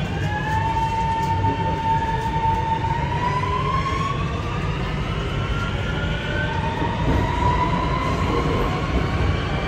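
Singapore MRT train accelerating away from a station, its motor whine rising in pitch in steps as it gathers speed, over a steady low rumble of the running gear.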